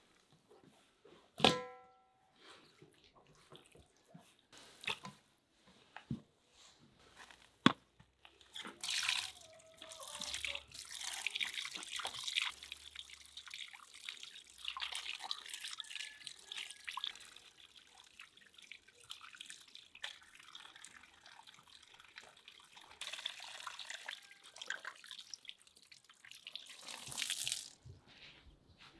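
A few sharp knocks in the first seconds, one with a short metallic ring. Then water runs and splashes onto raw beef heart pieces in an aluminium bowl as they are rinsed by hand, stopping shortly before the end.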